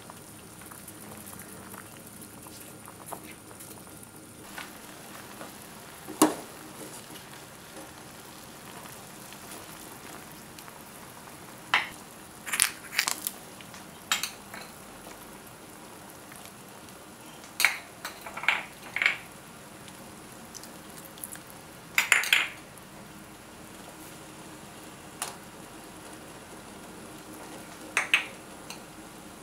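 Stainless steel pot of chicken-feet soup simmering on a gas stove with a steady low bubbling. About ten short, sharp clinks and clatters of spoons and small bowls against the pot stand out over it as seasonings are added.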